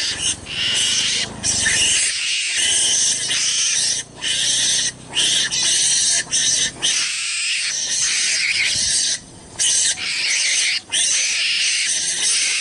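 Harsh, raspy animal calls, played as a lure to draw out a mongoose. They run almost without pause, broken by short sudden gaps every second or so.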